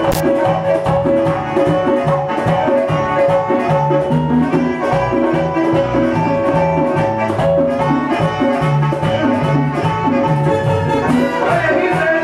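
A live salsa orchestra playing, with bass and percussion keeping a steady beat. A single sharp click just after the start.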